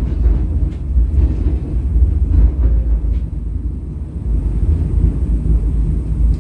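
English Electric Millennium Car 707 tram running along the tramway, heard from inside the car: a heavy, uneven low rumble with a few faint clicks and rattles.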